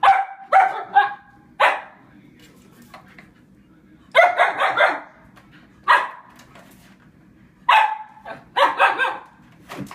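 Husky barking in short groups: a quick cluster at the start, a single bark, then a rapid run of barks about four seconds in, one more, and another cluster near the end.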